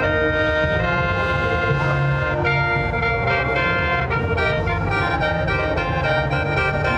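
Khaen, the Lao bamboo free-reed mouth organ, played solo: several pipes sound together in sustained, reedy chords that shift as the melody moves, with a steady low drone beneath.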